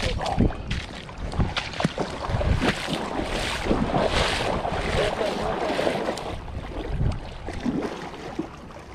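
Water splashing and sloshing in irregular bursts as someone wades out into the shallows to land a hooked fish, easing off near the end.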